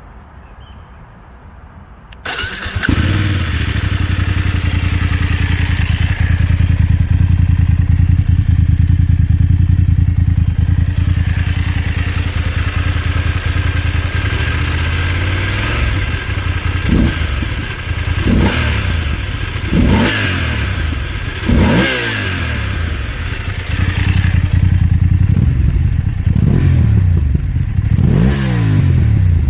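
BMW F 750 GS parallel-twin engine on its stock Euro 5 exhaust, warm, firing up about two seconds in and settling into a steady idle. From about halfway it takes a series of quick throttle blips, each a sharp rise and fall in pitch, then longer revs near the end.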